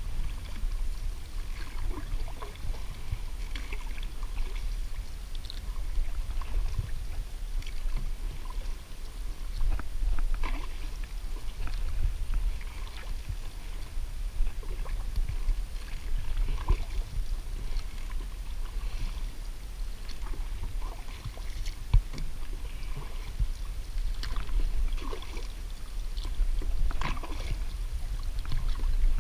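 Canoe on the water: irregular small splashes and water sounds from paddling and water against the hull, over a steady low rumble.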